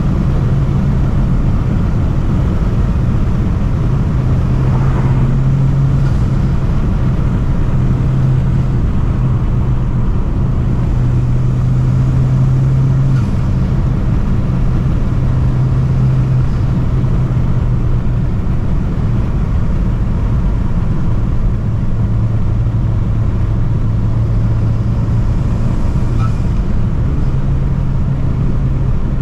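Honda Civic Type R's four-cylinder engine and intake running loud under way at fairly steady revs, with only small rises and dips in pitch, over a constant road and wind noise.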